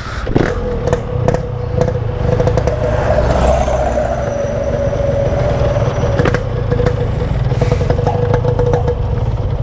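Motorcycle engine running steadily under way, with a sustained tone and some clatter.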